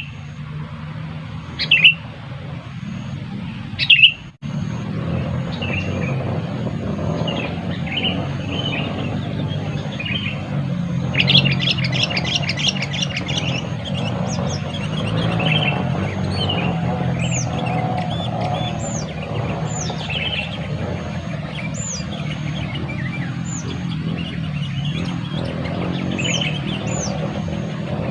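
Sooty-headed bulbuls calling with short bubbly chirps, loudest twice in the first few seconds, with a rapid rattling trill about eleven seconds in and thin high falling notes repeating later, over a steady low rumble.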